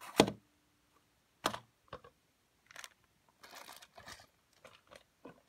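Knocks and clicks of a small plastic and die-cast toy tow truck being handled and set down on a tabletop. There is a sharp knock about a quarter second in, another about a second and a half in, then lighter clicks and a brief scraping rustle.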